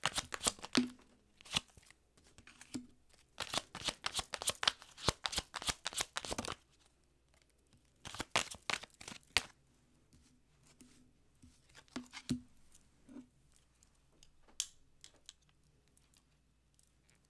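Tarot deck being shuffled by hand: three runs of quick card slaps and riffles, the longest about three seconds, then scattered single card clicks and a few soft knocks.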